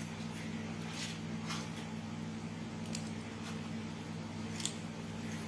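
A handful of light, sharp plastic clicks and taps as a replacement laptop keyboard is handled and fitted into the laptop's case, the sharpest a little before five seconds in, over a steady low hum.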